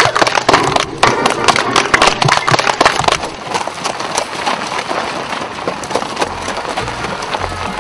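Audience applauding outdoors: loud, separate hand claps at first, thickening about three seconds in into a dense, even applause. A few low notes come in near the end.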